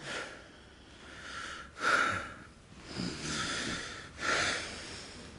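A sleeping man breathing noisily, four loud breaths about a second apart.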